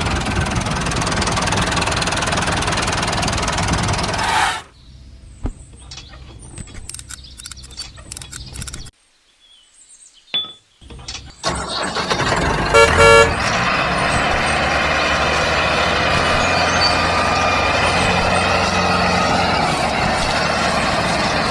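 A short horn toot about thirteen seconds in, the loudest moment, set between stretches of steady, dense machine-like noise. The noise drops out for several seconds in the middle, leaving scattered clicks and near silence.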